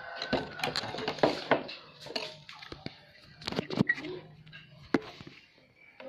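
Clicks and clattering knocks of hands working on a motorcycle's front end, handling the plastic body panel and horn wiring while a snail horn is being fitted. The sharpest knocks come about a second and a half in, near four seconds and near five seconds.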